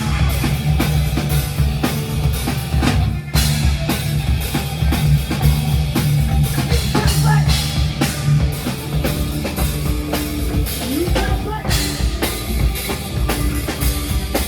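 Live rock band playing an instrumental passage: full drum kit with steady kick and cymbal hits over bass and electric guitar, no singing.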